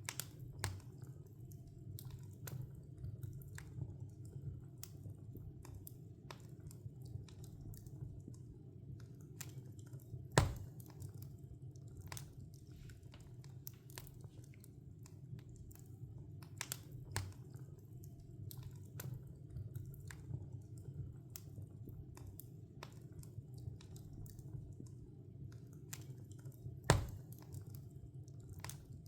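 Wood log fire burning in a fireplace: a steady low rumble from the flames with frequent sharp crackles, and two loud pops of the wood, about ten seconds in and near the end.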